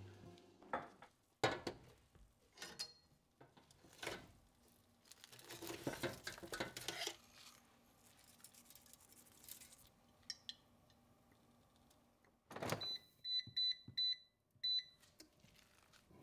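Scattered clicks, knocks and rustling of kitchen handling, then a knock and a Cosori air fryer's control panel beeping about five times in quick succession as it is set to cook for 30 minutes at 350°.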